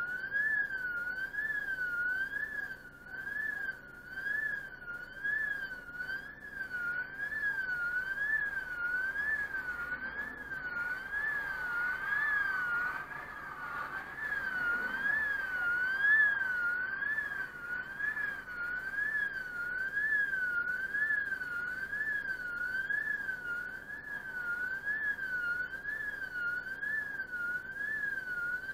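Level-crossing warning alarm sounding with the barriers down: a steady electronic tone warbling up and down about once a second, heard from inside a stopped car. Around the middle a passing car's noise swells and fades under it.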